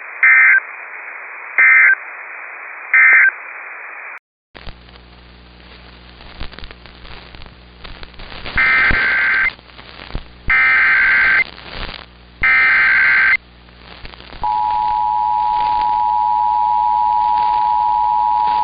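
Emergency Alert System tones: three short bursts of SAME digital data closing one alert, the end-of-message code. After a cut to a new recording with a steady hum and hiss, three longer SAME header bursts follow, and about 14 seconds in comes the steady two-tone attention signal that introduces the next warning.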